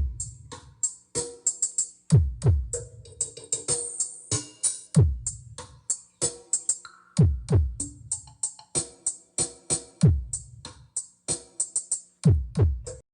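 Electronic dance music with a drum-machine beat played through a mobile sound system's subwoofers: deep bass kicks that slide down in pitch about every two and a half seconds, under rapid hi-hat ticks.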